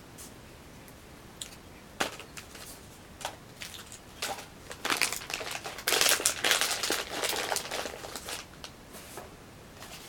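Snack packaging being handled and crinkled: a few scattered rustles and clicks at first, then a dense bout of crinkling from about five to seven seconds in, which then dies away.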